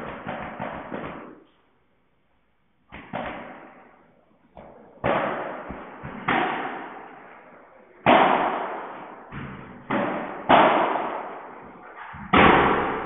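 Padel ball being hit back and forth in a rally: sharp pops off the rackets, court and glass walls, each ringing on in the echo of a large hall. It opens with a quick flurry of taps, then after a short pause single hits come about a second apart.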